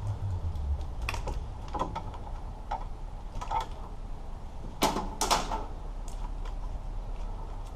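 Scattered light clicks and taps of a wiring harness's plastic connectors being handled and plugged in, with two sharper clicks about five seconds in.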